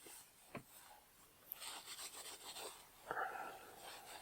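Faint rubbing and wiping of a cloth over a smartphone, in a few scratchy stretches, with a light tap about half a second in.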